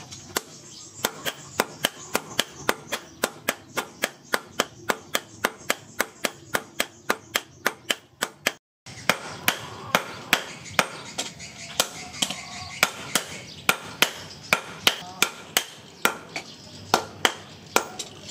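Hammers striking a red-hot steel sword blade on a steel post anvil, blows falling in a steady quick rhythm of about three a second, with one brief gap about nine seconds in.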